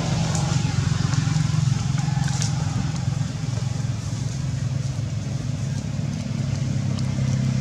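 A steady low engine hum, like a motor vehicle running, with a few faint clicks over it.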